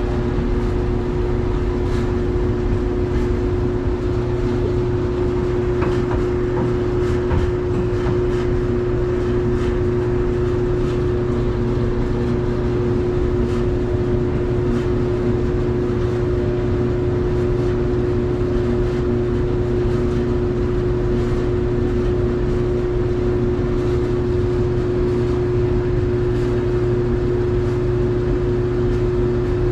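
Clothes dryer running with a steady hum: one constant mid-pitched tone over a low rumble, with faint ticks now and then. The hum is the noise being traced as a dryer fault.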